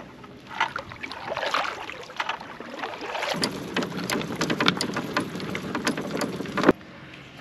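A loaded fishing kayak being hauled over pavement, with rods and gear on board clattering and rattling in many short knocks. The noise grows denser and louder about halfway through, then cuts off abruptly near the end.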